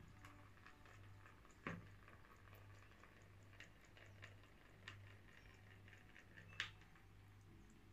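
Very faint trickle of coconut water running from a hole in a coconut into a plastic bowl, with a few soft ticks and drips, the clearest about two seconds in and another near the end, over a low steady hum.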